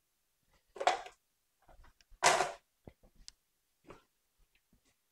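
Two short rustling noises about a second apart, followed by a few faint light clicks: hands handling food and dishes at a kitchen counter.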